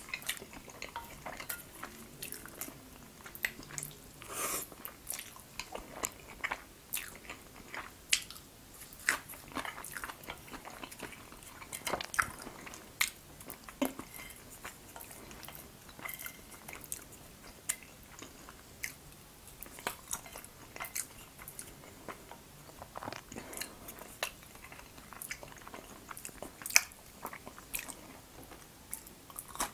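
Close-miked eating of jajangmyeon (black bean noodles): chewing and wet mouth sounds, with many irregular sharp clicks and scrapes of wooden chopsticks against a ceramic plate.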